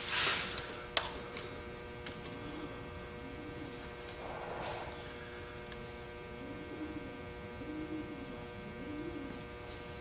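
Steady electrical hum, with a short rustle at the start and a few light metallic clicks and handling noises as calipers are brought up to measure a slot in a small machined part.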